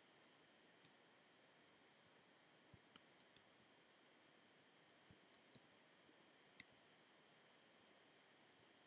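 Faint clicks from a computer mouse and keyboard, a lone click near the start, a quick group of three about three seconds in and another group of five or six between five and seven seconds, over a quiet room.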